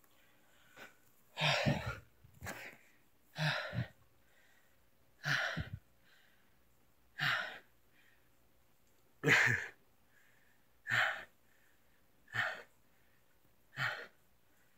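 A person breathing heavily, with about nine breaths or sighs in a row, one every one and a half to two seconds.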